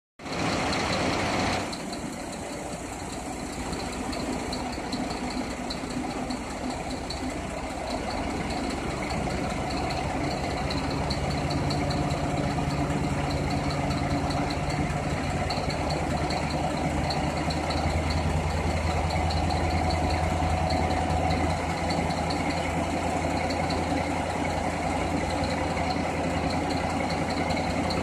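Scania tipper truck's diesel engine running steadily while the trailer's tipping body is raised hydraulically; the engine note grows stronger about ten seconds in and holds steady. A short, louder rush of noise comes in the first second or two.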